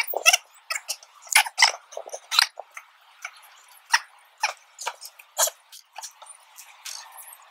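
Sped-up, chipmunk-pitched gasps, coughs and yelps from two people reacting to the burn of a super-hot chili pepper, in short, choppy bursts.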